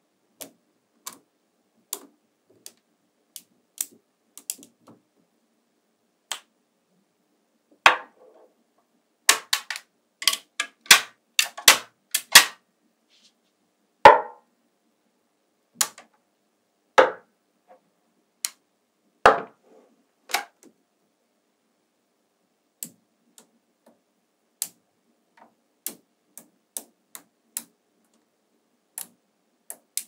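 Small magnetic balls clicking as pieces are snapped onto a magnetic-ball model: scattered sharp clicks, with a run of louder clacks in the middle.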